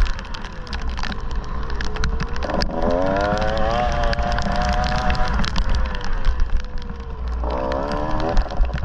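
Dirt bike engine being ridden, its pitch rising as the throttle opens about a third of the way in, holding, then dropping, with another short rev near the end, over a steady low rumble and scattered clattering knocks.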